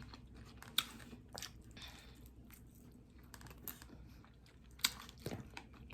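Close-up chewing of crispy food, with a handful of sharp, irregular crunches between quieter mouth sounds.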